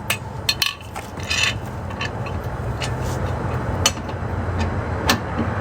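Lug wrench working on a wheel's lug nuts: scattered sharp metal clicks and a brief scrape over a low steady rumble.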